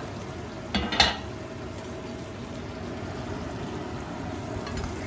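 Butter sauce bubbling and sizzling in a cast-iron skillet on a gas burner, steady throughout. About a second in, a loud double clatter as a plate is set down on the stovetop.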